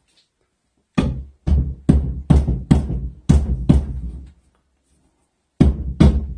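Drywall jab saw cutting through drywall in quick push-pull strokes: a run of about seven strokes at roughly two a second, a pause, then three more near the end.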